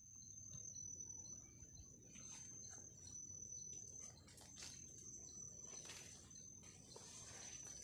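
Faint forest ambience: a steady, high-pitched insect trill, with scattered short bird chirps over it.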